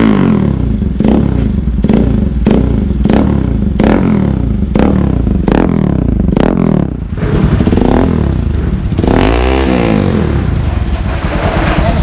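Bajaj Rouser NS200's single-cylinder engine revved through an aftermarket Villain slip-on muffler in quick repeated throttle blips, each with a sharp crack, then a longer rev up and back down near the end.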